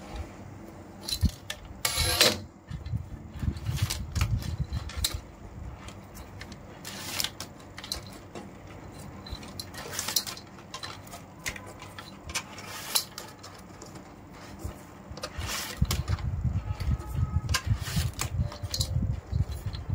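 Hand weaving with PE plastic rattan: irregular clicks, rustles and scrapes as the strands are pulled through and pressed into place, with low bumps of handling, heaviest about three seconds in and again near the end.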